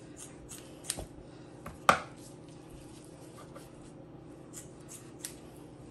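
Raw whole chicken being pulled apart and cut with a knife over a bowl: scattered light clicks, with two sharper knocks about one and two seconds in.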